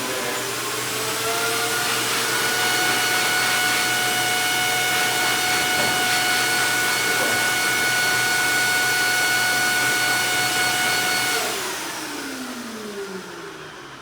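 Blow dryer motor running with a steady whine. It climbs in pitch over the first couple of seconds as it speeds up, then is switched off near the end and winds down with a falling whine.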